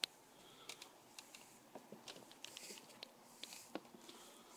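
Faint footsteps going down composite decking stairs: a few soft, irregular taps and clicks.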